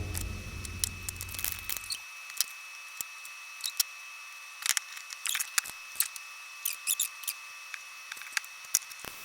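Scattered small clicks and ticks of hand tools and wires being handled at a workbench. A low hum fades out about two seconds in.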